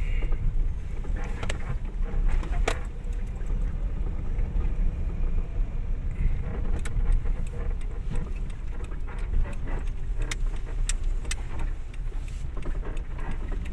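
Car cabin noise while driving slowly: a steady low engine and road rumble, with scattered light clicks and rattles from inside the car.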